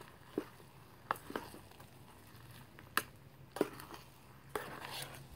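Metal spoon stirring rice in a stainless steel canteen cup: a few scattered clinks against the cup wall and a longer scrape near the end, as rice that has started to catch on the bottom is worked loose.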